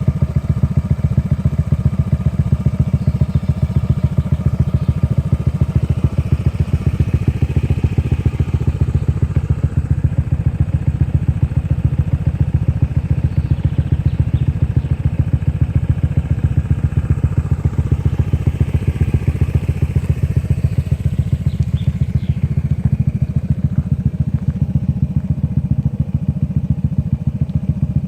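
Honda Forza 125 scooter's single-cylinder four-stroke engine running steadily at idle, its exhaust pulses even, with no revving. It sounds very smooth.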